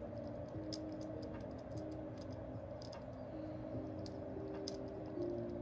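Light, irregular clicks and taps of small plastic and die-cast metal toy-car parts being handled and pressed together as a Hot Wheels car is put back together.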